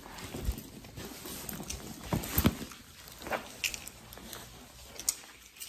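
Handling noise of a handheld phone being carried and moved: irregular rustling with scattered bumps and clicks, the loudest a couple of knocks about two seconds in.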